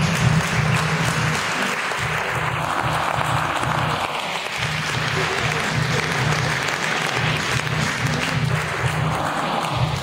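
Audience applauding, with music playing a steady bass beat underneath.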